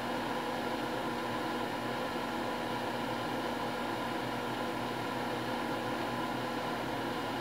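Steady hum and hiss with a few fixed tones, unchanging throughout.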